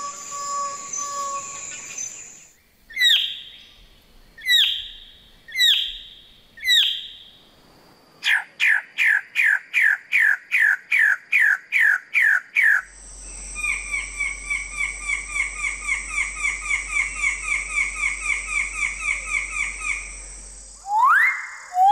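A run of different forest bird calls: four loud, separate calls a few seconds in, then a quick series of sharp repeated notes at about three a second, then a long even trill, and loud rising whistles at the end. Steady high insect-like tones run under the opening seconds.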